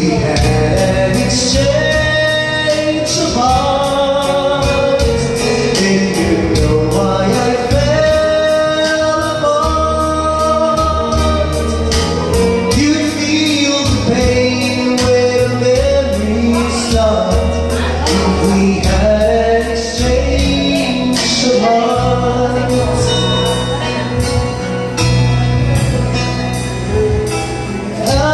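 A man singing karaoke into a handheld microphone over a backing track, both played loud through the bar's speakers.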